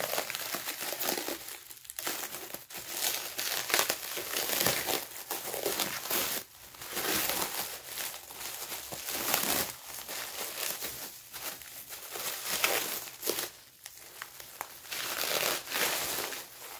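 Plastic cling wrap (saran wrap) being pulled and crumpled off a packed planter: continuous crinkling and crackling, with short pauses about two seconds in, about six and a half seconds in, and near the end.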